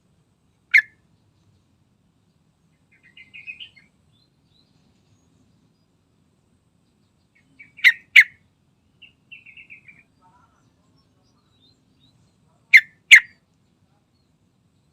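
Trucukan (yellow-vented bulbul) calling: a loud, sharp note about a second in, then two pairs of loud, sharp notes later on, with soft, quick twittering runs in between.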